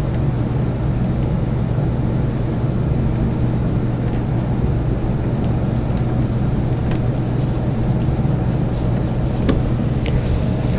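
A steady low hum, with a few faint scattered clicks from a hand Phillips screwdriver driving a screw through a metal bracket into the wooden tabletop.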